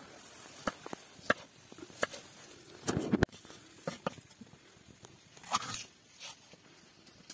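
Kitchen knife chopping bell pepper on a wooden cutting board: irregular sharp taps of the blade striking the board, with a louder cluster about three seconds in.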